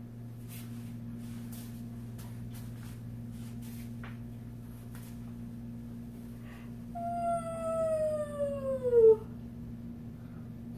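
A two-month-old baby's single long whine, about two seconds long, falling in pitch and growing louder as it ends. Under it a steady low hum, with a few soft knocks and rustles in the first half.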